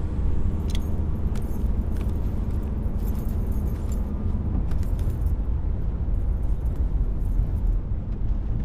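Steady low rumble of a car's cabin on the move, with a few light clinks and ticks during the first five seconds.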